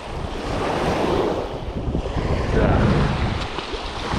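Small waves breaking and washing up a sandy beach, with wind buffeting the microphone.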